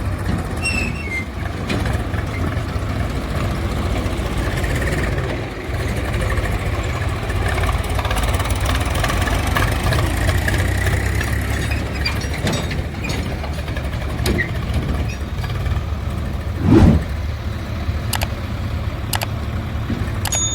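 Heavy diesel machine engine running steadily at low revs, with one brief loud thump about three-quarters of the way through.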